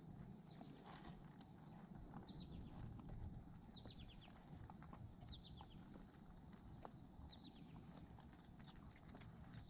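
Faint clicking and crunching of a litter of Saint Bernard puppies eating dry puppy food together. A few quick runs of short high chirps come through now and then over a steady high hiss.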